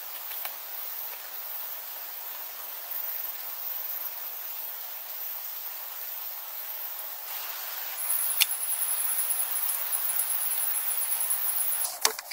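Night insects, crickets, chirping in a steady high-pitched chorus. A second, higher trill joins about eight seconds in, with one sharp click soon after.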